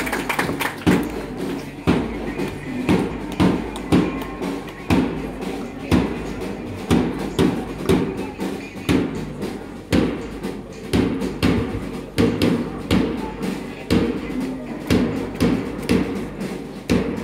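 March music with a steady drumbeat, about two beats a second.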